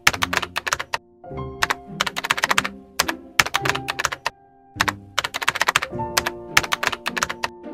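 Rapid keyboard-typing clicks in runs of about a second each, separated by short pauses, as a typing sound effect for on-screen text being typed out. Soft background music plays underneath.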